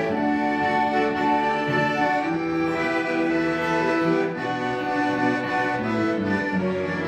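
Instrumental music of held, sustained chords with a slowly moving melody.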